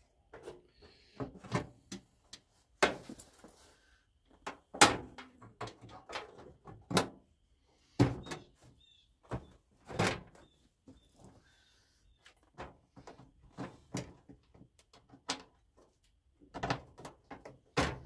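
Metal outer shroud of a GE microwave being fitted back on by hand: irregular knocks, clunks and light rattles as the panel is shifted and pressed into place, the loudest knocks about five, eight and ten seconds in.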